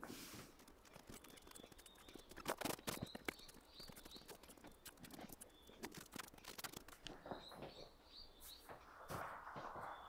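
Faint clicks and knocks of a paint brush and a small metal paint can being handled on a corrugated tin roof, with a bird chirping in short rising notes several times. Near the end, footsteps scuff across the tin roof.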